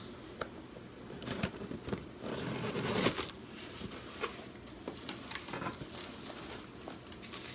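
A shipping package being opened and handled by hand: its packing material rustles and crinkles, with scattered taps and clicks, loudest about two to three seconds in.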